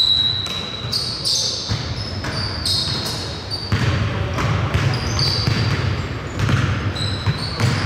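Basketball play in a gym: sneakers squeaking repeatedly on the court floor and the ball bouncing, with players' voices.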